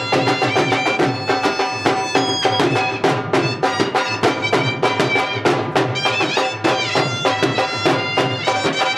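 Dhol drums played in a fast, dense rhythm, with a reed wind instrument playing a melody over them that steps between held notes and wavers about two-thirds of the way through.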